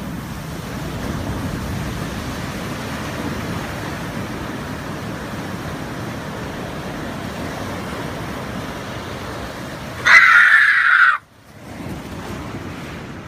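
Ocean surf washing steadily through a narrow channel between rocks. About ten seconds in, a much louder high sound lasts about a second and cuts off abruptly, then the surf returns more softly.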